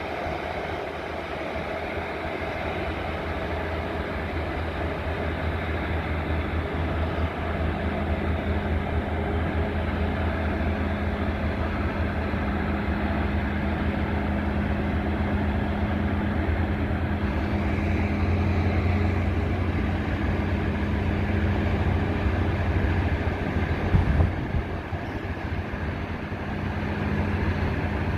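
Mt. Washington Cog Railway diesel locomotive pushing its passenger coach uphill, its engine giving a steady low hum that grows louder as it climbs. A single thump near the end.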